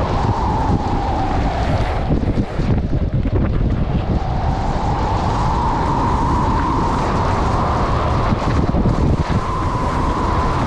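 Heavy wind buffeting on a GoPro 9's microphone while skiing fast, at about 60 to 76 km/h, down a groomed piste. A wavering whistle runs through the rumble, fading about two seconds in and coming back after about four.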